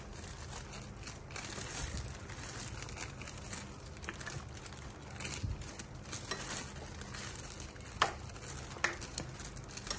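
Metal spoon stirring and turning chunks of vegetables and beef in a speckled stone-coated pan, with soft scraping and a faint sizzle over a low steady hum. The spoon knocks against the pan with two sharp clinks near the end.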